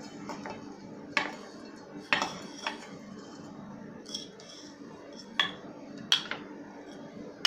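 A few light, separate clinks and knocks of ceramic bowls being handled and tapped while grated dry coconut is tipped into a mixer jar, over a faint steady hum.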